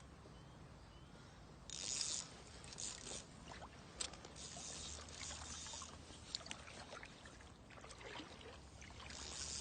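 Water splashing in several short bursts, with a few light clicks in between, as a hooked pike is played at the water's edge.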